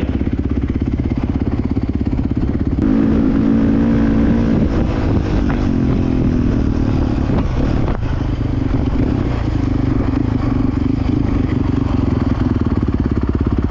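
Dirt bike engine running while riding, picking up and getting louder about three seconds in, easing briefly around eight seconds, then pulling steadily again.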